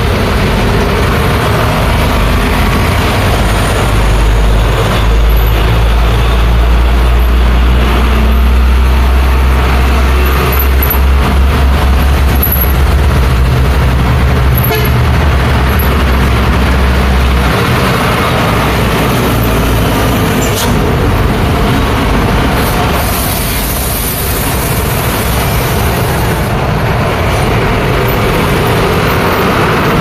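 Busy road traffic: diesel trucks, cars and motorcycles passing close by. A heavy truck engine gives a deep rumble from about four seconds in until about two-thirds of the way through. Later a sharp hiss of truck air brakes rises over the traffic for a couple of seconds.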